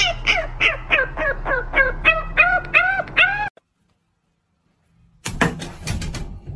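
French bulldog puppy giving a quick run of about a dozen short, arching yelps, roughly three a second, growing more whine-like toward the end, and stopping suddenly about three and a half seconds in. Near the end, a short run of knocks and rustling.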